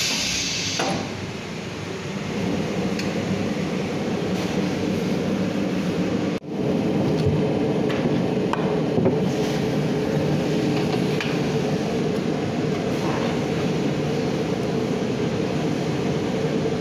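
Steady hum and whir of shoe-factory machinery, with a few faint knocks. It breaks off for an instant about six and a half seconds in.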